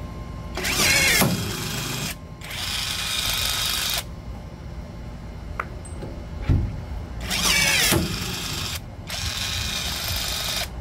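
Cordless battery pop-rivet tool setting two rivets into a Lexan window. For each rivet its motor whines for about a second and a half, stops briefly, then runs again for about as long. Between the two rivets there is a click and a thump.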